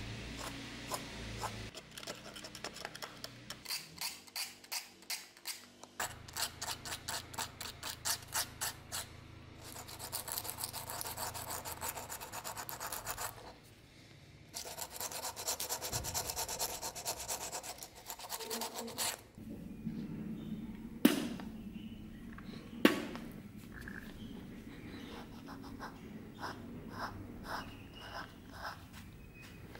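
A cloth rubbing back and forth over a wooden dagger grip in quick rhythmic strokes, cleaning off surface dirt with saliva. Two sharp knocks sound a couple of seconds apart past the middle.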